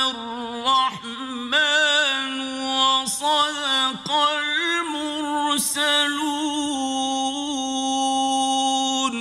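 A man's voice chanting the Quran in slow, melodic tajweed recitation: long held notes ornamented with wavering melodic turns, broken only briefly by consonants.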